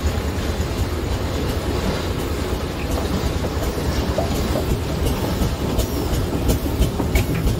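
Steam road engine on the move: a steady low rumble, with a run of sharp clicks and knocks in the last couple of seconds.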